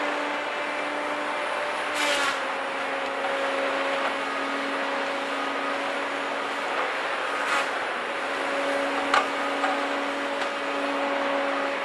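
Cat 521 tracked harvester running with a steady, even-pitched drone that drops slightly about two seconds in. Three sharp cracks or knocks stand out over it, about two, seven and a half, and nine seconds in.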